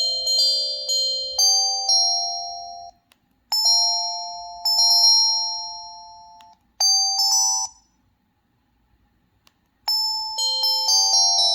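Preloaded ringtones of an LG C1500S cell phone: short chime tunes of bell-like notes, each struck and fading away. After about two seconds of silence late on, a new chime tune starts.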